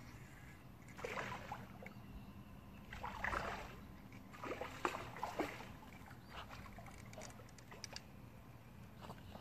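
Faint water sloshing and splashing in a few short bursts, about one, three and five seconds in, over a faint steady low hum.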